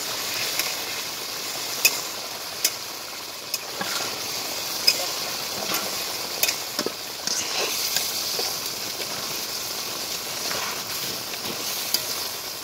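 Fish curry (macher jhol) sizzling and bubbling in a kadai over a wood fire, a steady hiss broken by scattered sharp clicks.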